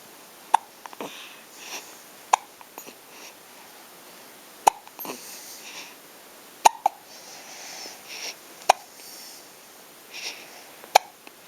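Hiccups: six short, sharp hiccups at a steady pace of about one every two seconds.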